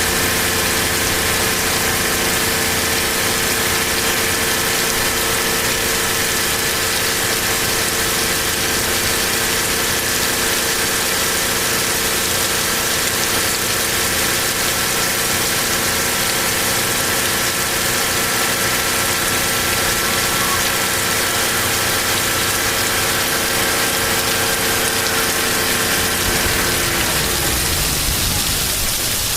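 A car engine idling steadily under the hiss of heavy rain. The engine fades out near the end, leaving only the rain.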